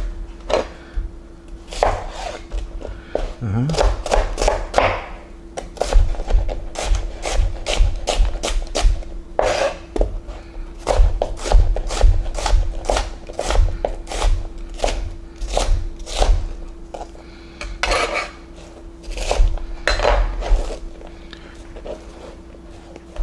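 Knife chopping onion on a cutting board: a long run of sharp chops, about two or three a second through the middle stretch, over a steady hum.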